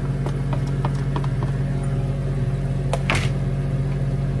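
Pineapple chunks pushed off a plastic plate into a frying pan of chicken adobo: a few light taps and knocks in the first second or so, then a sharper knock about three seconds in, over a steady low mechanical hum.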